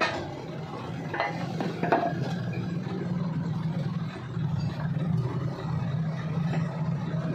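A few sharp metallic clinks and knocks as a large hydraulic cylinder is handled and lowered off a bottle jack: one at the start, one about a second in and one about two seconds in, over a steady low hum.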